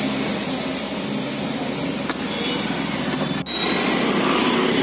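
Steady road traffic noise, with vehicle engines running nearby. The sound drops out for an instant about three and a half seconds in.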